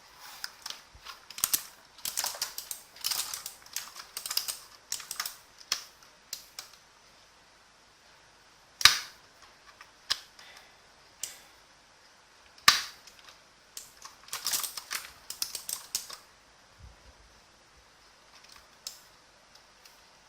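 Element Z77 mechanical keyboard with clicky Blue Outemu switches being typed on in quick bursts of sharp key clicks, with two louder single strokes in the pause between the bursts.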